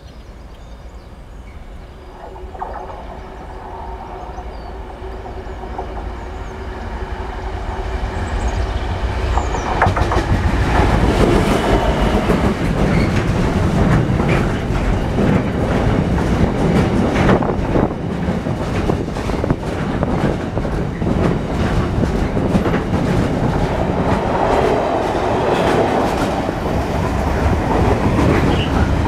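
Class 66 diesel-electric locomotive, with its two-stroke V12 engine, approaching and passing close by, growing louder over the first ten seconds. A long train of container wagons then rolls past with a steady clickety-clack of wheels over rail joints.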